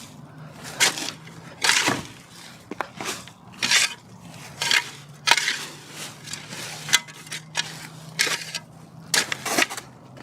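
Irregular crunching and scraping strikes, about one a second, over a steady low hum.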